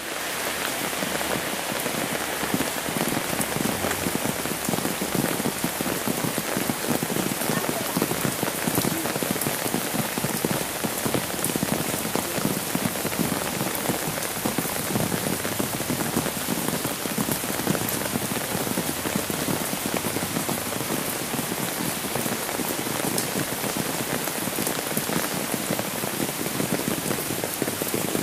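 Steady rain falling, an even hiss of many drops striking wet surfaces, unchanging throughout.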